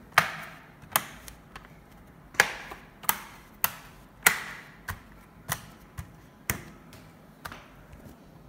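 Sharp plastic clicks and snaps, about a dozen at irregular intervals, as the bottom cover of an Acer Aspire E5-573G laptop is pried off and its clips snap loose. The loudest snaps come in the first half.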